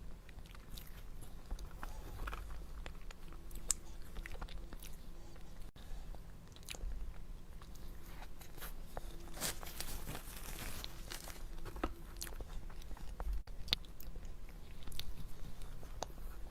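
Close-miked eating of a dessert: bites and chewing, with many small wet clicks and occasional crunches.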